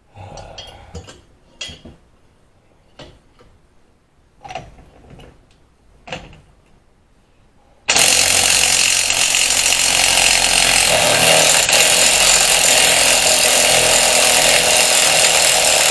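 Craftsman V20 brushless 1/2-inch cordless impact wrench hammering continuously on a car's axle nut for about eight seconds, starting about halfway in, to break the nut free. Before it there are a few light metal clinks.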